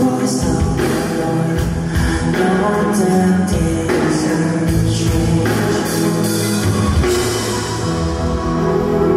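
Live rock band playing loud electric guitar, bass and drums, with a male lead vocal sung over it; the drumming thins out about seven seconds in.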